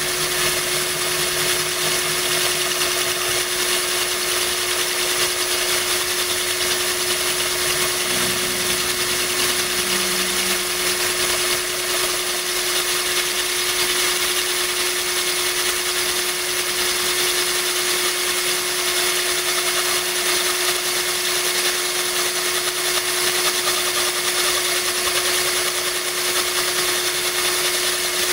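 Power drill running steadily as its bit grinds into a glass bottle under a stream of cooling water: a constant motor whine over the hiss of pouring water and grinding glass.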